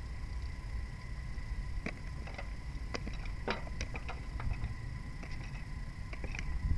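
Clam shells clicking against metal tongs and the rim of a metal basin as clams are picked out of water one at a time: irregular light clicks, starting about two seconds in, over a low steady rumble.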